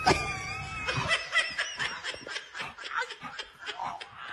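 A person laughing in quick breathy snickers, about five a second, trailing off toward the end, after a sharp knock and a high wavering squeal in the first second.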